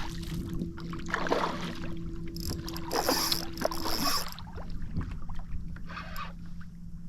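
Water splashing around a kayak as a hooked fish is brought alongside, with the loudest splashing from about two to four seconds in, over a steady low hum.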